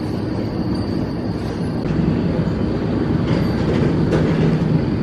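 Steady supermarket background noise: a loud, even rumble with a thin, high, constant whine and low hum.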